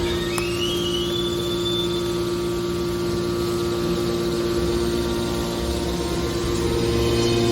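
Hydraulic baler's motor and pump running with a steady hum. A whine rises in pitch over the first two seconds, and there is a single click just after the start.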